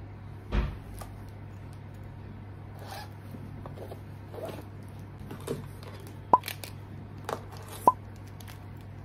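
Small handling sounds over a steady low hum: a soft thump about half a second in, light rustling, and two sharp clicks with a short ring near the end.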